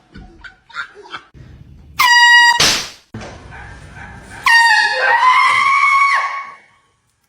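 Air horn blasting twice: a short blast about two seconds in and a longer one of about two seconds starting about four and a half seconds in, with a rising, wavering cry over the second blast.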